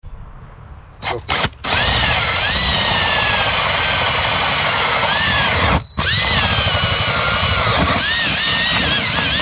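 Power drill running under load, cutting a hole for an inspection port in a plastic leach-field chamber. Two short trigger blips come about a second in, then two long runs split by a brief stop, the motor pitch dipping and rising as it bites.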